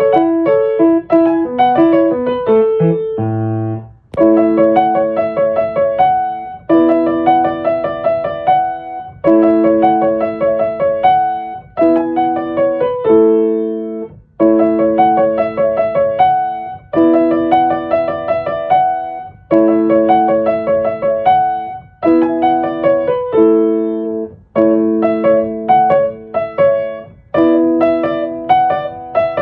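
Solo piano music: a gentle repeating pattern of broken chords, its phrases pausing briefly about every two and a half seconds.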